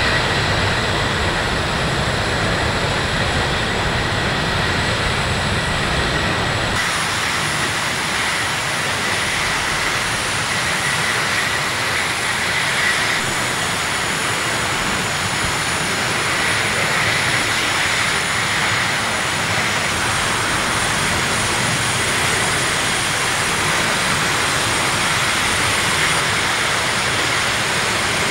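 Burning fuel tank cars of a train: a loud, steady rushing noise of the fire, with a faint high whine running through it. Its character shifts slightly a few times, about 7 and 13 seconds in and again later.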